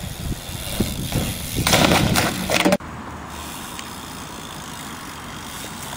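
BMX bike rolling across skatepark concrete, with a brief louder rush of noise about two seconds in. Almost three seconds in the sound cuts abruptly to a steady, quieter hiss.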